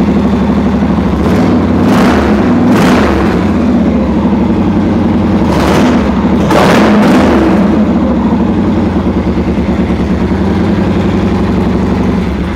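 Victory V92C Deluxe's 1507 cc V-twin engine idling steadily, with a few quick throttle blips that raise the revs around two seconds in and again around six to seven seconds in.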